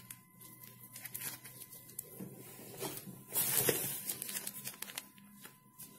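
Plastic packaging bags rustling and crinkling as they are handled, with a louder rustle about three and a half seconds in.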